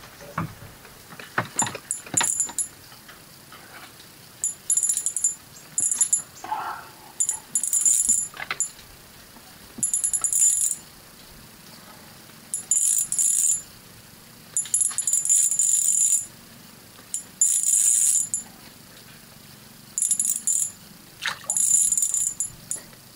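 A small spinning reel cranked in short bursts about ten times, each a high-pitched whir with a fine rapid ticking that stops and starts as line is retrieved. A few knocks come about two seconds in.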